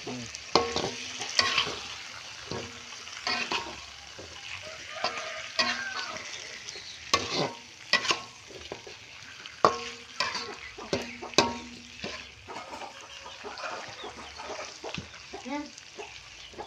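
Chicken pieces frying in hot oil in a wok, sizzling, while a metal spatula stirs and scrapes the pan with frequent sharp clinks.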